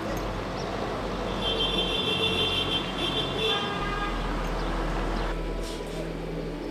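Steady outdoor background noise, with a steady pitched tone sounding from about a second and a half in until nearly four seconds in.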